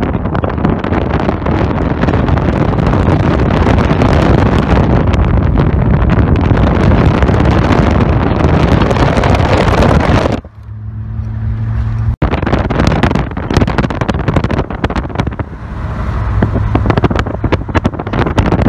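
Wind rushing and buffeting over a phone microphone held at the window of a moving car, mixed with road and engine noise. About ten seconds in the wind drops away suddenly, leaving a steady low drone of the car. Then the rushing builds up again.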